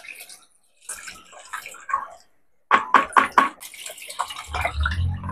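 Coconut milk poured from a plastic jug into a wok of chicken pieces, splashing and pattering irregularly onto the meat, with a low hum coming in near the end.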